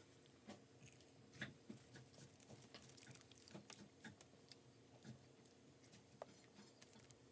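Faint, scattered sounds of someone eating a hamburger: soft chewing and mouth clicks and light crinkles of the paper wrapper as the burger is handled, over a low steady hum.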